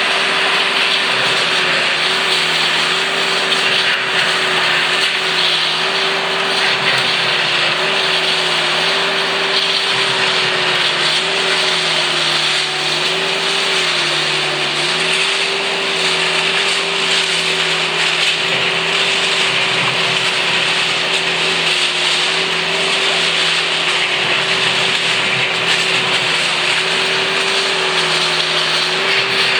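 Loud, steady running of motorised railway track-work machinery, with a slightly wavering hum under a dense mechanical hiss.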